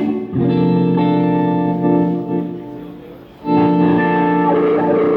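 Guitar played through an amplifier in a sound check: a chord is struck just after the start and left to ring, fading over about three seconds, then a second chord is struck about three and a half seconds in and held.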